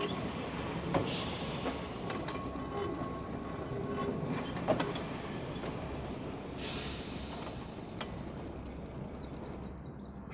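Manx Electric Railway tram car rolling slowly along steel rails and drawing to a stop. A thin steady whine sounds through the first four seconds, with a few sharp clicks from the wheels over the track and a short hiss about seven seconds in.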